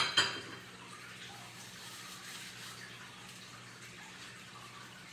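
Two quick clinks of kitchenware right at the start, each ringing briefly, followed by a steady low hum in the kitchen.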